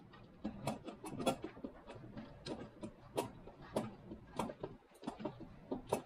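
Irregular light clicks and taps of a garage door safety sensor, its bracket and its thin lead wire being handled on a desktop while the wire is wound into a coil.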